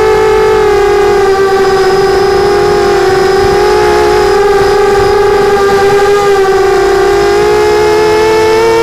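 Mini 250 quadcopter's brushless motors and propellers whining steadily, picked up by the onboard Mobius camera. The pitch sags slightly through the middle and climbs back near the end as the throttle changes.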